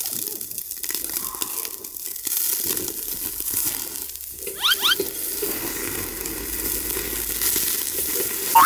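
Thick beef ribs sizzling on a charcoal grill grate, with fat crackling steadily. A short rising squeak comes about halfway through as tongs turn the meat.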